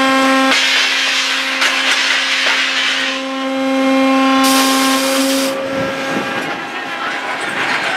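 Rebar shearline conveyor machinery running: a steady motor whine that drops out and comes back, with stretches of rushing mechanical noise and a brief high hiss about halfway through.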